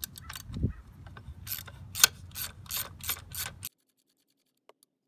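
Socket ratchet clicking in quick repeated runs, about three clicks a second, as it works a 12mm skid-plate bolt loose under a dirt bike's engine; the clicking stops abruptly about three-quarters of the way through.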